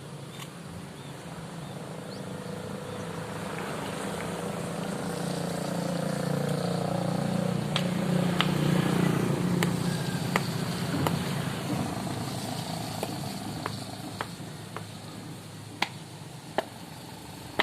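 A motor vehicle's engine hums steadily, grows louder to a peak about halfway through, then fades as it passes by. Several sharp knocks come in the second half.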